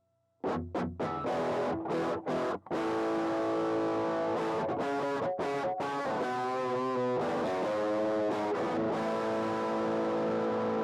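Electric guitar played through a pedalboard with a distorted, effects-laden tone: short choppy chords start about half a second in, then give way to held, ringing chords.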